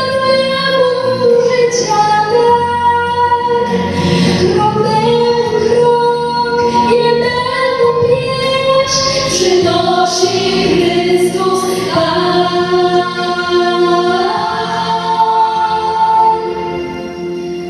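A choir of teenage girls singing together in held, sustained notes, growing quieter near the end.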